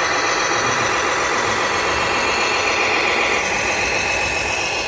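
Radio-controlled scale model Fendt 1050 tractor driving while pulling a tipper trailer, making a steady motor sound with a high whine over it.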